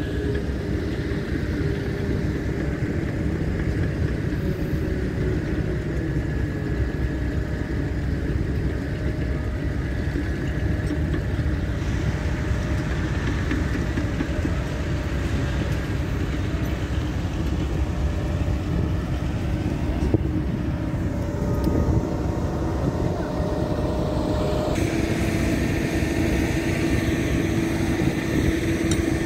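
Diesel engine of a single-drum soil compaction roller running steadily at a distance, over a constant low rumble. The engine note changes near the end.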